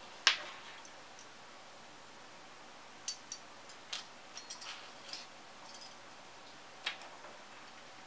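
Sharp clicks and light taps of a stock AMD CPU heatsink and fan being handled and fitted onto the motherboard's retention bracket. There is one loud click just after the start, a scattered run of lighter clicks around the middle, and another click near the end.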